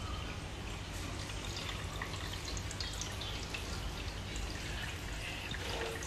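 Aquarium water trickling and dripping, a steady patter of small drops over a low hum.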